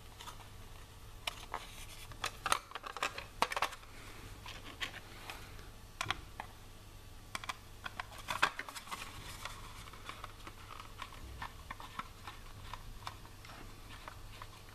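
Small clicks and taps of an M3 screw and nut being turned with a screwdriver through a vacuum-formed plastic case and acrylic grille panel, with the plastic case being handled. The clicks come in clusters, the loudest about two to four seconds in and again around eight seconds in.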